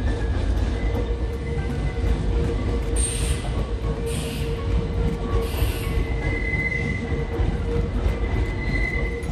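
Nankai 8300 series electric train moving slowly through the station with a steady low rumble. There are three short high hisses a few seconds in, and a thin high wheel squeal near the end.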